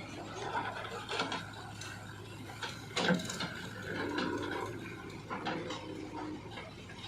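Backhoe loader's mechanism clicking and rattling over a steady low hum, with one louder knock about three seconds in.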